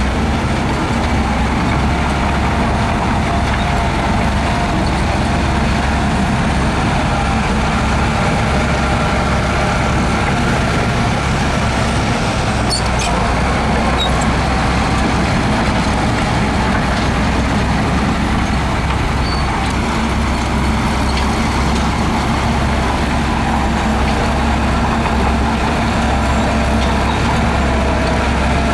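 Diesel engine of a Shantui DH17C2 bulldozer running steadily, with a few faint clinks about halfway through.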